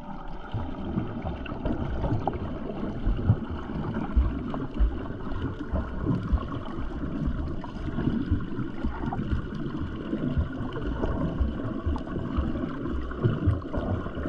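Muffled underwater noise picked up by a submerged camera: a low, irregular rumble and churning of water against the housing, with a few sharp knocks.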